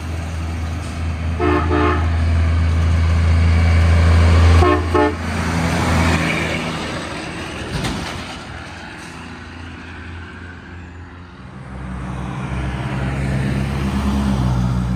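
A passing truck sounds its horn: one short honk about a second and a half in, then two quick honks around five seconds. Under it runs the truck's loud, low engine drone, which peaks as the truck passes and gives way to a rush of tyre and wind noise. Another vehicle's engine builds near the end.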